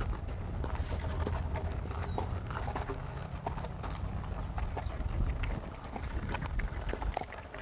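Ridden horse's hooves clopping on dirt as it walks, a scatter of uneven knocks, over a steady low rumble.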